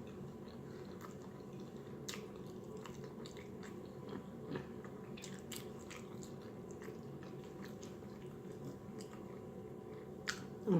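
Quiet close-miked chewing of food, with scattered soft wet mouth clicks and a few louder ones, over a steady faint hum.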